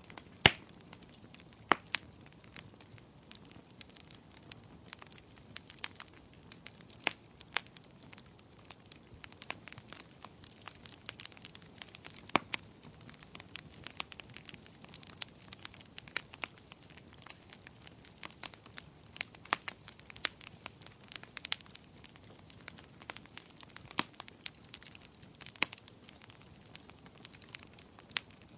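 Wood fire burning, with irregular sharp crackles and pops over a soft hiss. The loudest pop comes about half a second in.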